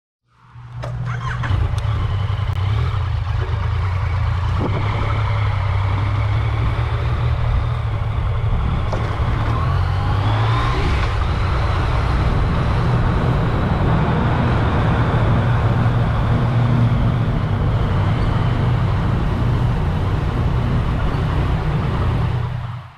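Yamaha MT-09 three-cylinder motorcycle engine running steadily while riding, with road and air noise over it.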